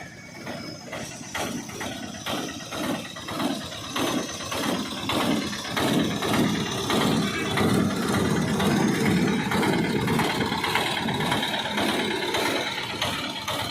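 A small engine running with a pulsing beat that quickens and gets louder about halfway through.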